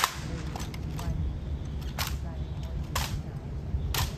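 Honor guards' boot heels striking the stone in an even slow-march rhythm: sharp clicks about once a second, the first the loudest, over a low murmur of onlookers.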